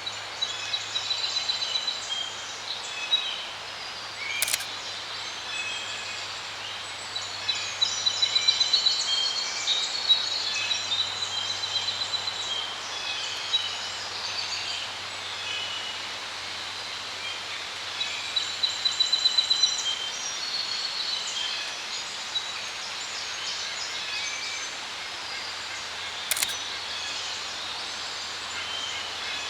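Songbirds chirping and trilling, several at once and on and off, with two sharp clicks, one about four seconds in and one near the end, over a faint steady low hum.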